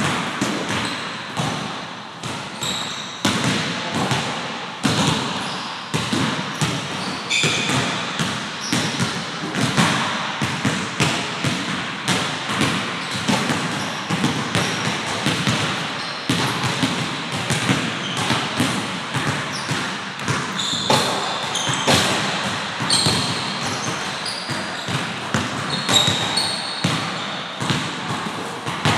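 Several basketballs bouncing on a hardwood gym floor in an uneven, overlapping run of dribbles, with occasional short high sneaker squeaks.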